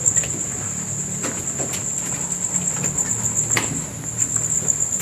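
Crickets trilling in a steady, high-pitched pulsing drone, with a few footsteps on the floor.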